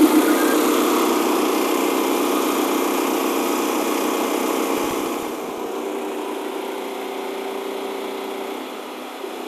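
Two Westinghouse WGen9500 open-frame portable generators running together, a loud steady engine drone while they carry the food truck's full electrical load. The drone drops in level about halfway through and again near the end.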